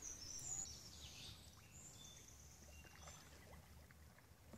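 Near silence: faint river ambience, with soft water sounds around a canoe and a few faint bird chirps.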